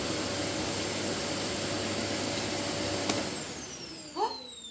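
Vacuum cleaner running steadily, then switched off with a click about three seconds in, its motor whine falling in pitch as it spins down. A brief rising squeak near the end.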